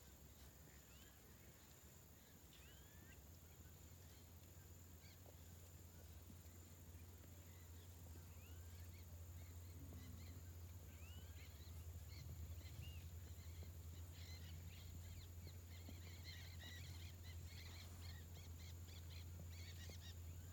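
Faint outdoor ambience of scattered bird chirps and calls, growing into busier chattering toward the end, over a low steady hum and a thin high steady tone.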